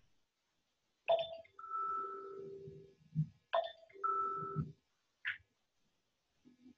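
A phone timer's alarm chime repeating about every two and a half seconds. Each time it is a bright struck note followed by a held tone, sounding twice before it is switched off.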